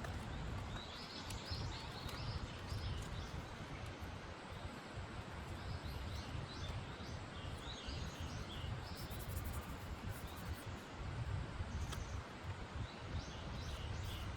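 Small birds chirping in repeated short bursts of high notes over a steady low background rumble.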